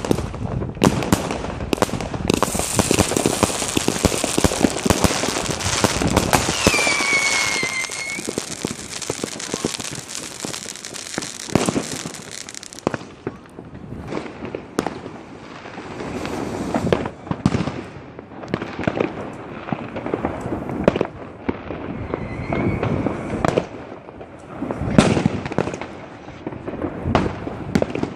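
Battery fireworks firing continuously: a dense run of bangs and crackling, with a thick hiss through the first half and a whistle gliding down in pitch about seven seconds in.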